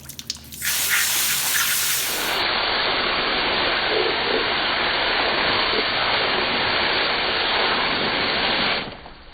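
A steady, loud rush of spraying water that starts suddenly about half a second in and stops near the end.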